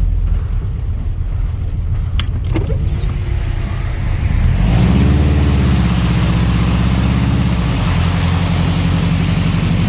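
Subaru STI's turbocharged flat-four engine running as the car drives on. About halfway through the engine note rises under acceleration and then holds steady, and a broad rushing hiss comes in with it. There are a couple of sharp clicks before that.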